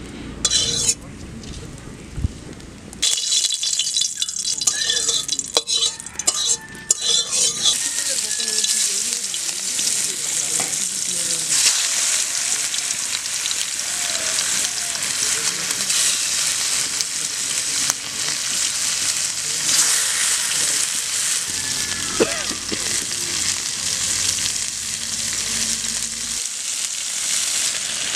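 Slices of pumpkin frying in hot mustard oil in an aluminium kadai: a loud, steady sizzle that sets in about three seconds in as the slices go into the oil.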